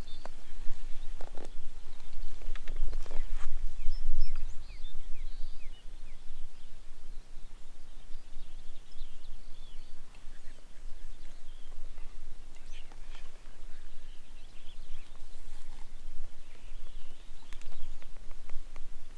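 Footsteps crunching through dry grass and brush for the first few seconds, then birds chirping repeatedly over a steady low rumble.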